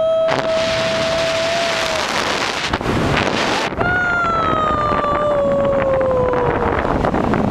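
Wind rushing hard over the microphone as a tandem paraglider goes through an aerobatic spiral. Two long, steady high tones sound over it: one ends about two seconds in, and the second starts near the middle and slowly falls in pitch.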